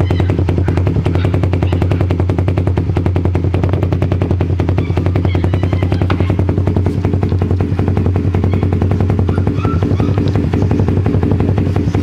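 Suzuki Raider R150 Fi's single-cylinder four-stroke engine idling steadily through a Vmax aftermarket exhaust with its silencer insert removed, a fast, even pulsing from the open pipe.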